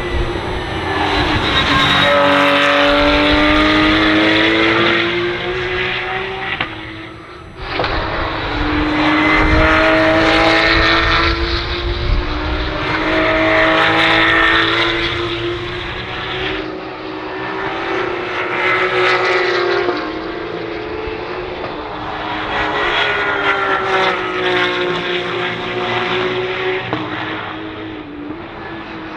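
Porsche 911 GT3 Cup race cars' flat-six engines at full throttle, passing in several loud swells. The engine pitch climbs and drops again and again through the gear changes.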